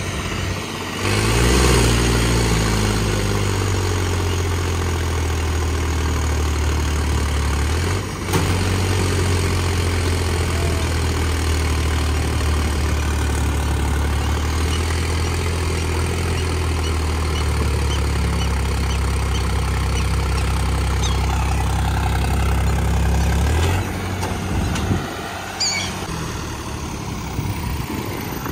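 Tractor diesel engine revving up about a second in and then running steadily at high revs. It dips briefly about eight seconds in and drops back to a lower level a few seconds before the end.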